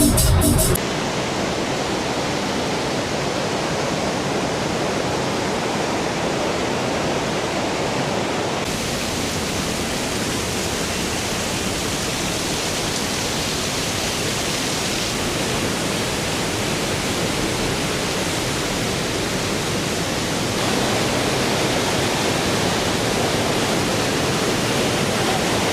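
Steady roar of a large waterfall: an even rushing noise across all pitches, with no tones in it. The sound shifts abruptly twice, about a third of the way in and again past three quarters.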